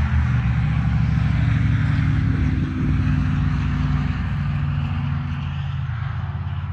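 A Ural Gear Up's 750 cc air-cooled boxer-twin engine idling steadily, a little fainter near the end.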